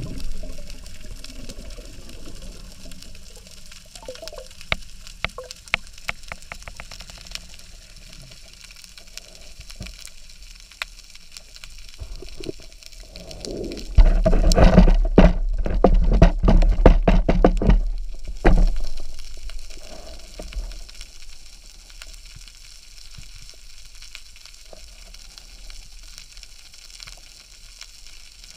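Underwater sound picked up through a camera's waterproof housing: a steady faint crackle of scattered clicks. About halfway through comes a louder few seconds of rushing water and rapid clicking, which then dies back.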